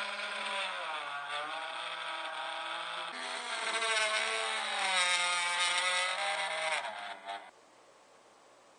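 Small handheld electric drill running as it drills into a PVC pipe union. Its whine dips in pitch about a second in, rises again about three seconds in, and stops abruptly near the end.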